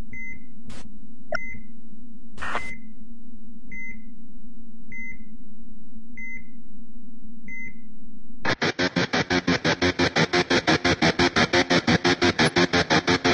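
Short electronic beeps, evenly spaced about once a second, over a steady low hum, with a brief hiss about two and a half seconds in. About two-thirds of the way through, a fast pulsing electronic music track cuts in and takes over.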